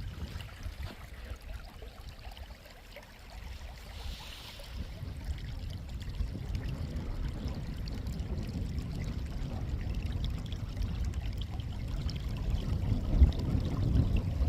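Wind buffeting the microphone outdoors in gusts, a low rumble that grows stronger toward the end.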